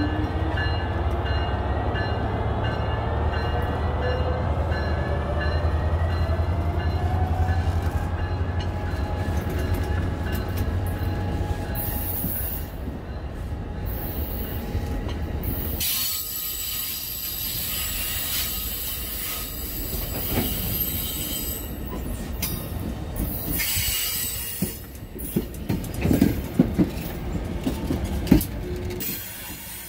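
A train passing: heavy diesel locomotive rumble with a whine rising in pitch over the first ten seconds or so. The rumble drops away about halfway through, leaving the rolling cars with high, steady wheel squeal and scattered clicks from the wheels near the end.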